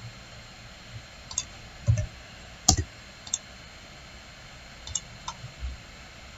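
Computer mouse clicks, a few at a time at irregular intervals, the loudest about two and a half seconds in, with a couple of soft low thumps.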